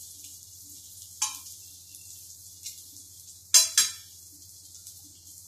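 Ghee sizzling steadily in a flat pan around a fried omelette, with sharp metal clacks of tongs on the cookware: one about a second in and two loud ones in quick succession a little past halfway.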